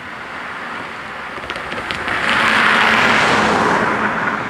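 A car driving over the level crossing and passing close by. A few clicks come about one and a half seconds in as its tyres cross the rails, then the tyre and engine noise swells to its loudest about three seconds in and fades.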